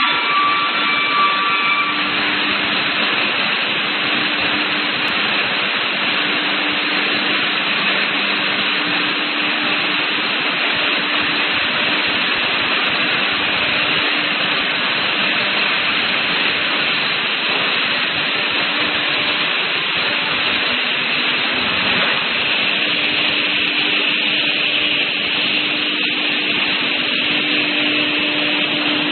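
CNC panel saw line running: a steady, even machine noise with a low hum underneath that fades in the middle and returns near the end.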